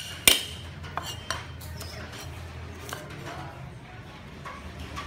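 Cleaver chopping green onions on a wooden chopping board: a sharp knock just after the start, then a few lighter, irregular chops.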